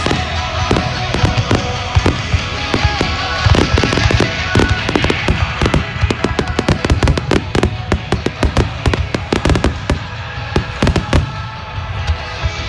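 Fireworks shells bursting in quick succession, many sharp reports close together and thickest in the middle, with music playing underneath.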